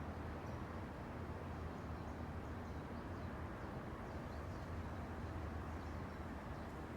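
Steady outdoor ambience: a low, even rumble of wind and distant road traffic, with faint, scattered high bird chirps over it.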